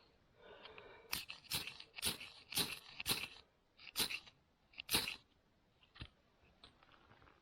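A Morakniv Companion knife shaving curls down a wooden stick to make a feather stick: about seven sharp scraping strokes, each a brief crunchy scrape, coming about every half second to a second, then stopping about five seconds in.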